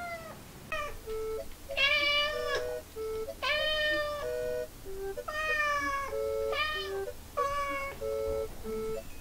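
Domestic cat meowing over and over, about six drawn-out meows that bend in pitch, with light music of short plucked notes in the gaps.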